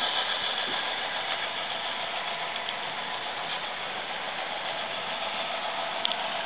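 Diesel engine sound from the DCC sound decoder in an HO-scale Intermountain AC4400 (AC44) model locomotive, running steadily through its small onboard speaker. A brief click about six seconds in.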